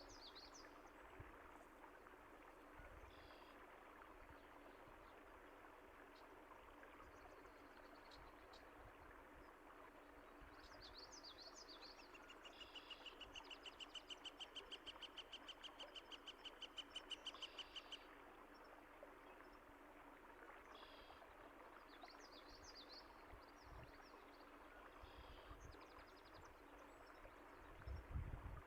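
Small birds chirping over a steady wash of running water. In the middle, one bird gives a rapid trill of evenly repeated notes for about five seconds, growing louder, and a low thump comes near the end.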